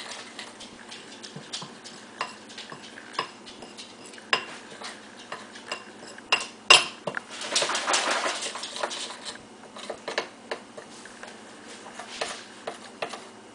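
A spoon stirring runny chocolate icing in a bowl, clinking and scraping against its sides in irregular strokes. A sharper clink comes about seven seconds in, followed by a longer scrape.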